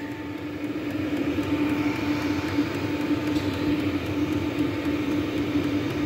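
Steady mechanical hum of a small motor running, with one strong constant tone over a rushing noise; it grows slightly louder in the first second, then holds even.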